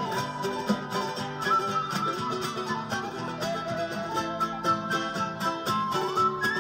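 Andean folk music played live: a quena (notched end-blown cane flute) carries a held, gliding melody over steadily strummed charango and acoustic guitar.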